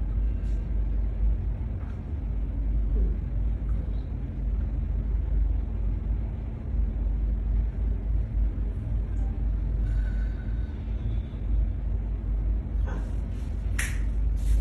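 Steady low background rumble with a faint constant hum, and a sharp click near the end.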